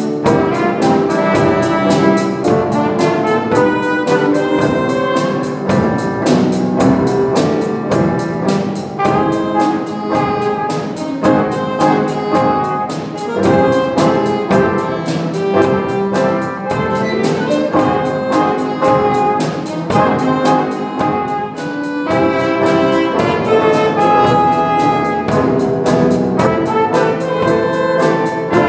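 Children's variety ensemble playing a lively brass-led instrumental, trumpets and trombones over a steady beat, in a jazz style.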